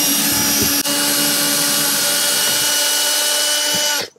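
A handheld cordless power tool running steadily at the bottom of the door-side wall. It stops for an instant about a second in, resumes at a slightly different pitch, and stops sharply about four seconds in.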